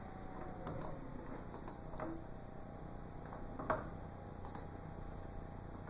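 About half a dozen faint, scattered clicks of a computer being operated by hand, mouse or keys, the clearest a little under four seconds in, over a low steady hum.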